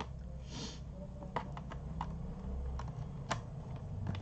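A few irregular clicks of computer-keyboard keys being pressed, over a steady low electrical hum; the sharpest click comes a little after three seconds in.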